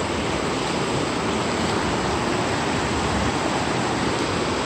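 Rushing river water, a steady even noise.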